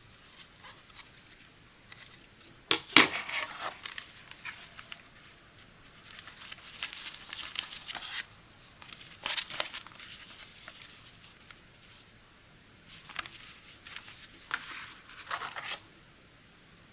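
Packaging being unpacked by hand: crinkling and tearing in several bouts, with a sharp click about three seconds in.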